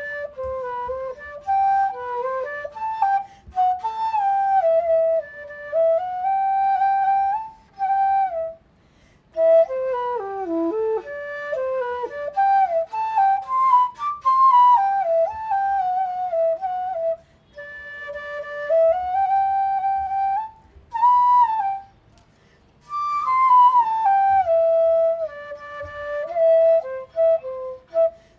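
Background music: a solo flute playing a slow melody with sliding, bending notes, in phrases broken by short pauses.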